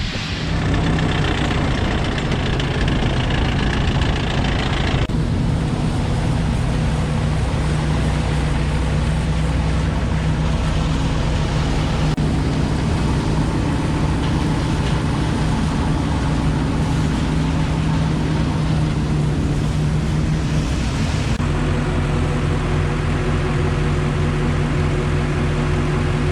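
Diesel engine of a large John Deere farm machine running steadily. The sound changes abruptly twice, about five seconds in and again later on.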